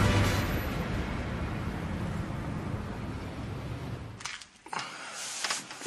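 A fading wash of sound as the theme music's last chord dies away, then a few soft clicks and rustles from a mobile phone being handled, starting about four seconds in.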